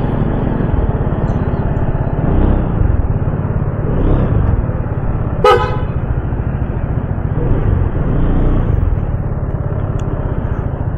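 Motorcycle engine and road rumble running steadily while riding, with one short vehicle-horn toot about halfway through.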